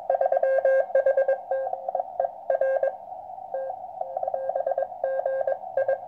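Morse code received on a QCX 80 m transceiver: a single tone keyed on and off in dots and dashes over a steady hiss of band noise held to a narrow band by the receiver's filter. It spells out a reply from station G3HGE, 'DE G3HGE R TKS GIL VY GA UR 56/8N', thanking the operator and giving a 568 signal report.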